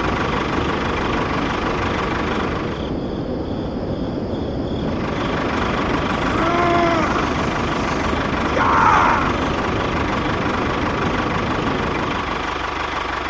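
Steady engine-like running noise, with a brief arching pitched sound about seven seconds in and a short rising chirp near nine seconds.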